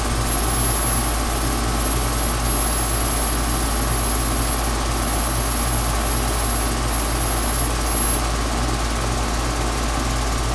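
Gibson central air conditioner's outdoor condensing unit running steadily, with compressor hum and condenser fan noise. It is running low on refrigerant while R22 is being charged in.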